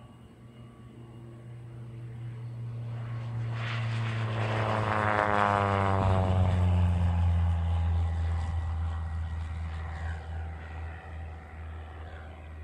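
Grumman American Cheetah light plane making a low flyby: the drone of its four-cylinder Lycoming engine and propeller builds, is loudest about six seconds in as it goes past, then drops in pitch and fades as it moves away.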